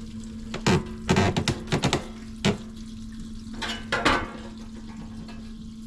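Clinks and knocks of metal parts and containers being handled around water, in short clusters, over a steady low hum.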